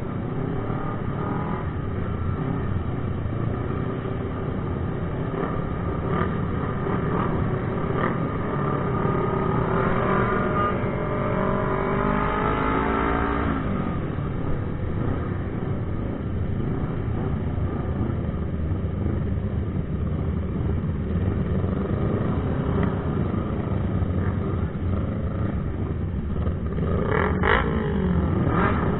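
Engines of a group of sport motorcycles running together, heard from one riding among them. The engine pitch rises and falls as they rev and shift, most clearly about midway and again near the end.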